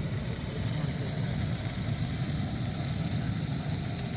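A car's engine and road noise, steady and unbroken.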